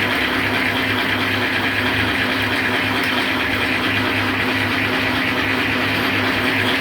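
Bamboo satay-skewer rounding machine running steadily: a constant motor hum under an even hiss.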